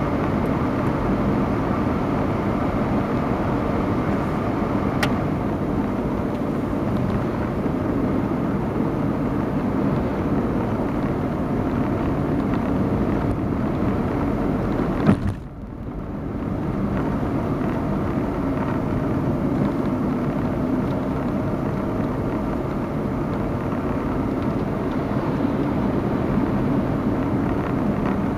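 Steady road and engine noise of a car driving along a paved road. About halfway through comes a single sharp knock, after which the noise drops for a moment before returning.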